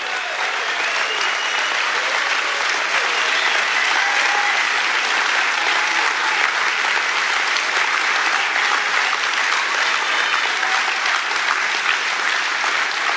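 Large audience applauding steadily, with a few faint calls among the clapping.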